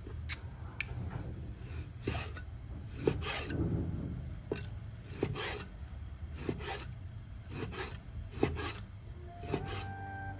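Cleaver chopping raw pork on a thick wooden chopping board: irregular knocks of the blade on the wood, with the scrape of the blade drawing through the meat. Music comes in near the end.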